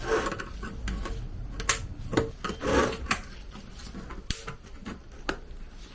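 Irregular clicks, knocks and scraping from handling a paint tin and tools, with no drill running.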